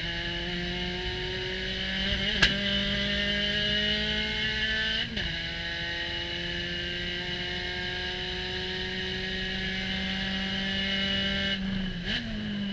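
Spec Racer Ford Gen3's four-cylinder engine at full throttle, heard from the cockpit: revs climb in third gear, the pitch drops at the upshift to fourth about five seconds in, then climbs steadily again and falls as the driver lifts near the end. A sharp knock about two and a half seconds in is the loudest single sound.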